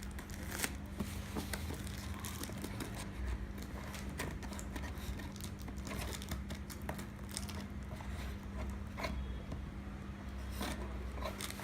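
Delivery parcel packaging crinkling and tearing as it is worked open by hand, with many irregular crackles and small snaps. A steady low hum runs underneath.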